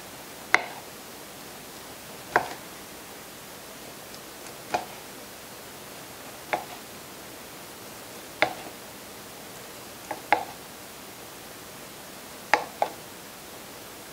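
Chef's knife slicing through cooked corned beef brisket and knocking on a plastic cutting board at the end of each slice: a sharp tap about every two seconds, twice as a quick double tap.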